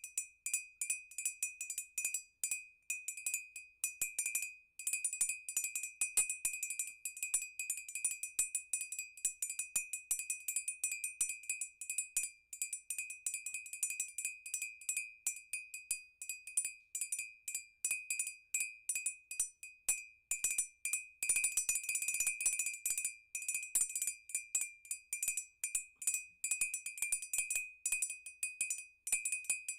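Music played on a glass: the glass is tapped quickly and unevenly, several strikes a second, each ringing the same high, clear note, so the pitch never changes.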